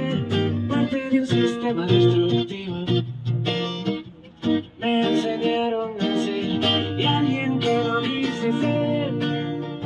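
Busker strumming an acoustic guitar and singing into a microphone, heard through a small amplifier, with a brief lull about four seconds in.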